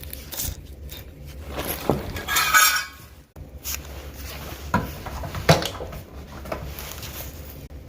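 Scattered metallic clinks and knocks from metal parts and tools being handled, with a brief scraping rustle about two and a half seconds in, over a steady low hum.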